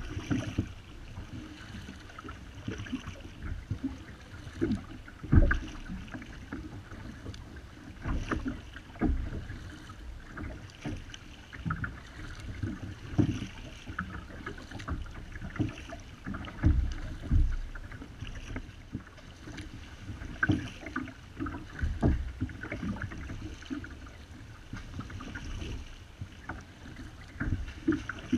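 Paddling a Wilderness Systems Ride 135 sit-on-top fishing kayak: double-bladed paddle strokes splashing and dripping, with water moving along the hull. Irregular low knocks and splashes come every second or two.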